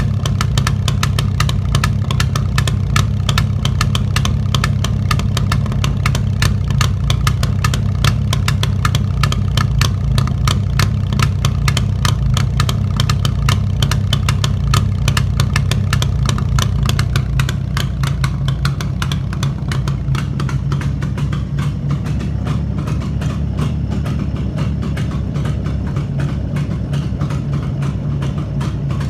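Jawa 350 two-stroke twin-cylinder motorcycle engine running steadily at idle after a full rebuild, with a dense, even crackle of firing pulses. It settles slightly quieter a little past halfway.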